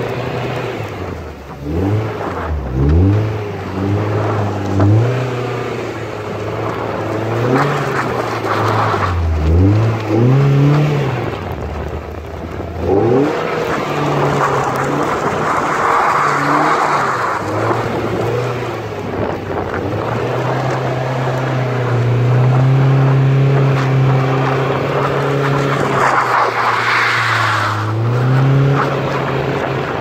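Car engine revving up and down over and over as the car is driven in circles on snow, then holding higher revs for several seconds near the end. A hiss of tyres spinning in the snow rises twice, around the middle and near the end.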